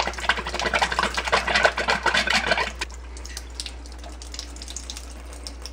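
Thin stream of water from a reverse osmosis system's faucet splashing into a kitchen sink, the water being run to purge the newly installed system; the splashing stops about three seconds in, leaving only faint room hiss.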